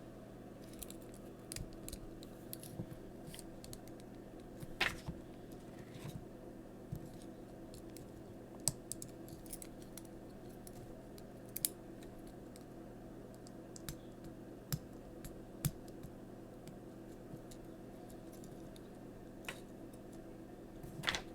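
Scattered small clicks and taps of plastic toy-figure parts being handled and snapped together, over a steady low hum.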